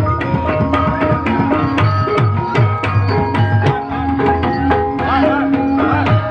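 Ebeg accompaniment music: hand-drum (kendang) patterns with pitched percussion playing a repeating melody, with short sliding tones near the end.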